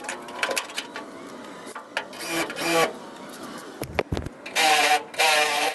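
Power drill running in short bursts as it cuts out spot welds in rusted truck sheet metal, two pairs of bursts about half a second each, with metal clicks and a dull thump about four seconds in.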